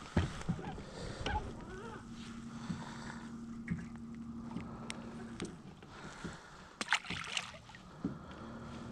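Small fishing boat on the water: light water slaps and knocks against the hull, loudest about seven seconds in. A steady low hum comes on about two seconds in, stops around five and a half seconds, and starts again near the end.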